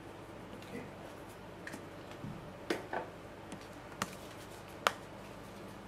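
About six short, sharp clicks and taps, spread unevenly over a few seconds, over a faint steady hum.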